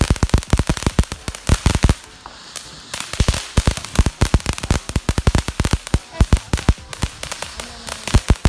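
Whimsy fountain firework in its crackle finale: a dense, rapid stream of sharp crackling pops, thinning out briefly about two seconds in, then crackling hard again.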